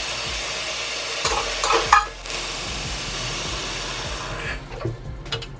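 Tap water running into a pot of black beans as a steady hiss. It breaks off briefly about two seconds in, then runs again and stops near the end, leaving a few light clinks.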